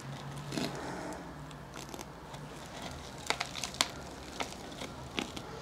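Quiet rustling and crackling of a potting-soil root ball and a thin plastic plant pot being handled as the plant is fitted into the pot, with a few light clicks and taps in the second half.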